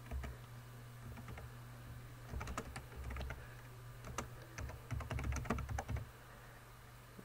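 Computer keyboard typing in short runs of keystrokes with pauses between them, stopping about a second before the end; a steady low hum underneath.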